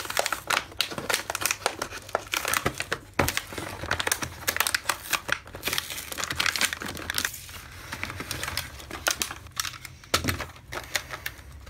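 Clear plastic blister pack crinkling and crackling as its cardboard backing card is peeled and torn away, a dense run of irregular crackles and clicks.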